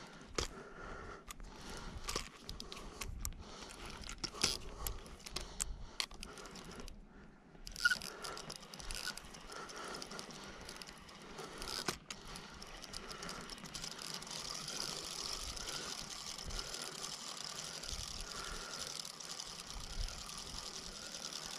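Fishing reel being cranked, a steady whirring rattle from about twelve seconds in. Before it come scattered clicks and knocks of rod and reel handling.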